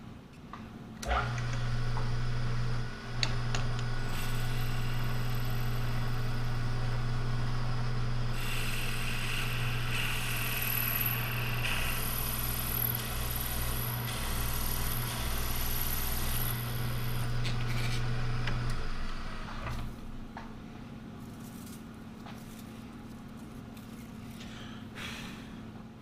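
An electric shop machine's motor switches on about a second in and runs with a steady hum. A hissing, grinding noise rides over it through the middle, then the motor switches off and winds down about three-quarters of the way through.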